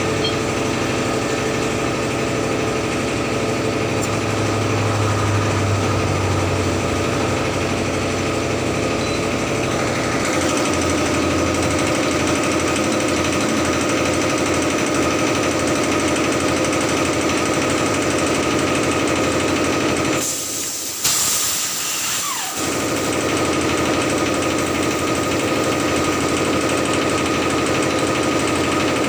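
A machine running steadily with a rapid rattle. Its low tone changes about ten seconds in, and the sound drops out briefly about two-thirds of the way through.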